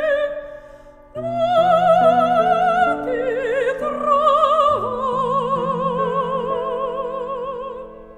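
Background music: operatic singing with wide vibrato over sustained orchestral accompaniment. The music dips briefly about a second in, then fades out near the end.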